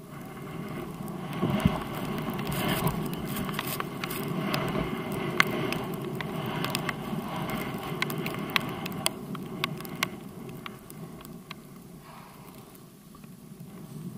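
Skis carving and swishing through deep powder snow, a steady rushing noise that swells and eases with the turns and quietens about twelve seconds in, with scattered sharp ticks throughout.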